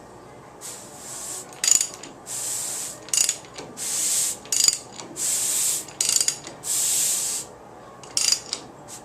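Hand socket ratchet being worked back and forth: five rasping runs of clicks, each under a second long and about a second and a half apart, with sharper single clicks between them.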